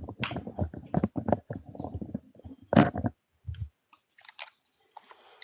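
Irregular clicks and crackling noise, dense for about the first three seconds with one sharper click near the end of that stretch, then a few scattered faint clicks.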